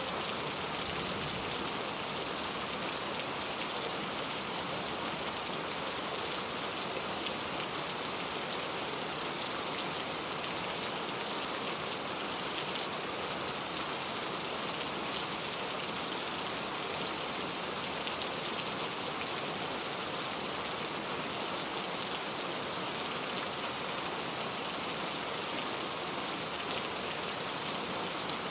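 Steady rain falling, an even hiss of many fine drops hitting a surface with small scattered ticks, unchanging in strength.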